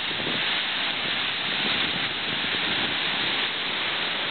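Steady rush of a fast-flowing river over rocks, an even hiss of water with no break.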